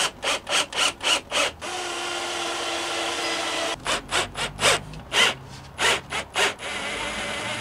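Bosch cordless drill-driver turning bolts through a wooden cabinet door. It runs in a quick series of short bursts, then steadily for about two seconds, then in short bursts again, and settles into a steady run near the end.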